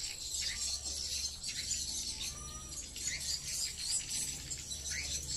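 Swiftlet calls, from the swiftlet house's tweeters playing lure sounds and from the swiftlets circling it: a dense, high-pitched twittering with short, repeated falling chirps.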